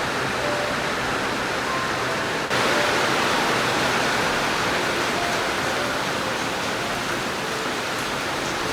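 Steady heavy rain, a dense even hiss that steps up louder about two and a half seconds in.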